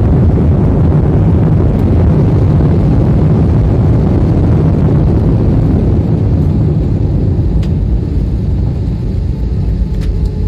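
Cabin noise of an Airbus A320neo on its landing rollout: a loud, steady rumble of engines and wheels on the runway that eases off as the aircraft slows, with a faint steady hum coming in near the end.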